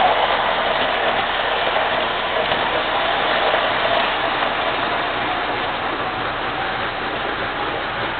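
MTH O-gauge R32 model subway train running on its track: a steady rolling noise, a little louder near the start and easing slightly later on.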